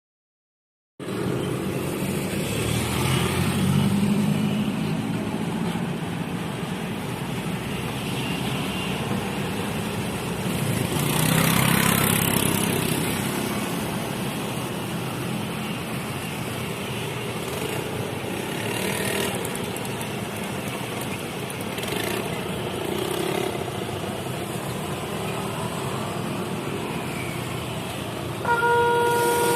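Road traffic of cars and motorbikes passing over a railway level crossing, with one louder vehicle going by about twelve seconds in. Near the end the crossing's new electronic warning alarm starts: clear tones that step between pitches.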